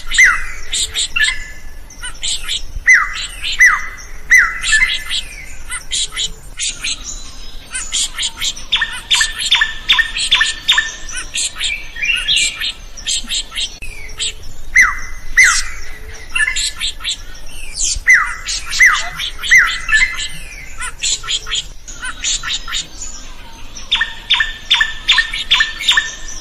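Drongo singing continuously, a varied song of downward-slurred whistled notes, harsh squawky calls and sharp notes. Twice it breaks into a fast rattling run of repeated notes lasting a few seconds.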